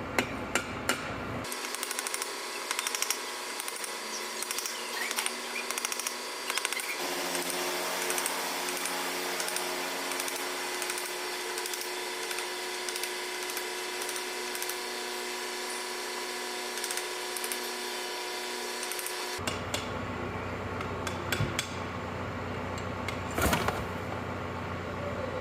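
Metal tools working a stuck bearing loose from the final drive casting of a Case 310G dozer: repeated clicks and scraping, with a few sharp knocks just after the start and again near the end.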